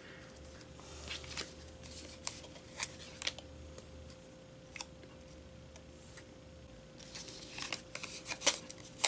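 Light paper handling: small cardstock pennant pieces being slid and pressed onto cardstock on a cutting mat, giving scattered soft clicks and rustles. They come thicker and louder near the end as a strip of paper pennants is picked up.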